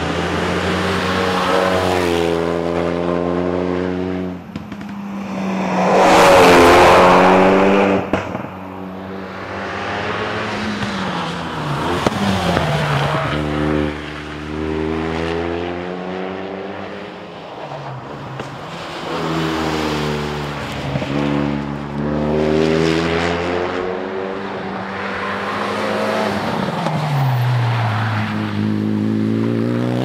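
Renault Mégane RS250 rally car's turbocharged 2.0-litre four-cylinder engine accelerating hard through the gears, its pitch climbing and then dropping at each upshift, again and again. The car passes close and is loudest about six seconds in.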